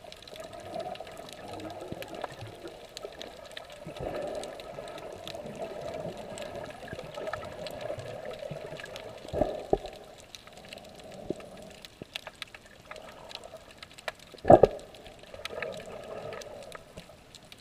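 Muffled underwater water noise picked up by a submerged camera, a wavering wash that swells and fades. A few sharp knocks cut through it, the loudest about two-thirds of the way in.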